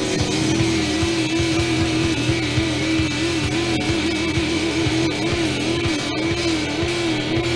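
Punk rock song with distorted electric guitar and drums, with a loud held note wavering up and down in pitch over the band.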